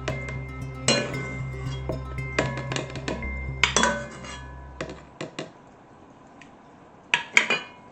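Kitchen dishes and utensils clinking and knocking: sharp glass and metal clinks with short ringing tones, several in quick succession, over a low hum that stops about five seconds in.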